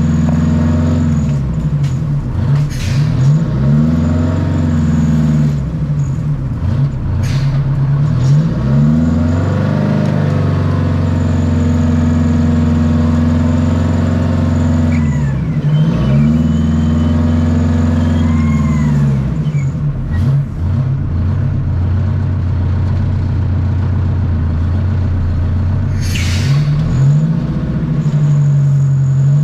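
Wheel dozer's diesel engine working under load, its pitch rising and falling over and over as it is throttled up and down. A few sharp clanks, and a higher whine that rises and falls with the engine in the middle.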